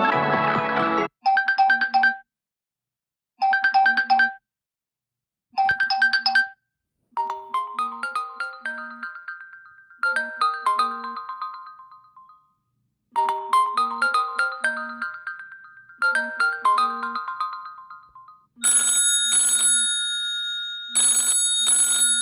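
Huawei P40 Pro phone ringtones (EMUI 12) playing in turn. Three short identical chime phrases come about two seconds apart, then two long runs of falling notes, and near the end a brighter held electronic tone that sounds twice.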